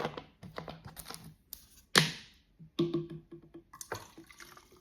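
Clicks and taps of plastic bottles being handled while a bottle is refilled with carbonated drink. About two seconds in there is a sharp hiss that fades within half a second, and a short low tone follows about a second later.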